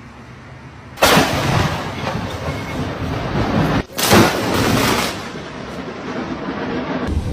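Two close thunderclaps: a sharp crack about a second in and another about four seconds in, each trailing off into a long rumble.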